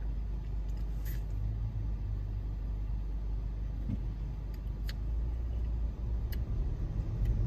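Car engine idling, heard as a steady low rumble inside the cabin, with a few faint clicks.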